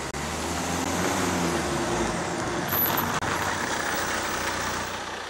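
A saloon-car taxi driving up close and pulling up alongside: engine and tyre noise that swells loud in the first second, then eases off near the end.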